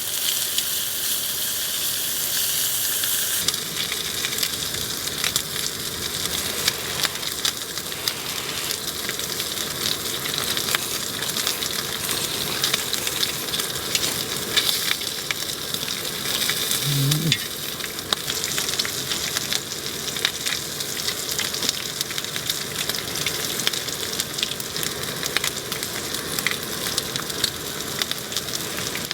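Food sizzling in a hot pan: a steady frying hiss with many small crackles, and one brief low sound about halfway through.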